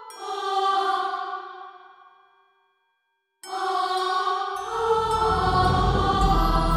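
Intro music: a struck, ringing chord that fades away to a brief silence, then the music starts again about halfway through, with a deep low rumble joining it a second later.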